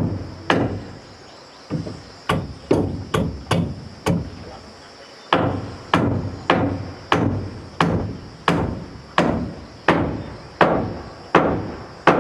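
Repeated sharp blows of a hand tool, about one and a half a second, each ringing out briefly, with a short pause about four seconds in.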